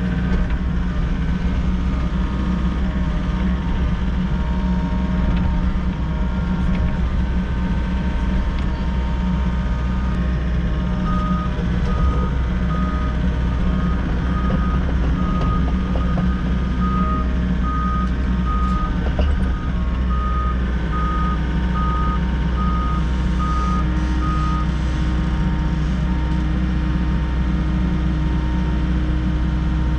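Diesel engine of a Volvo EC60E mini excavator running steadily. A backup alarm beeps at an even pace, about one and a half beeps a second, starting about eleven seconds in and stopping some thirteen seconds later.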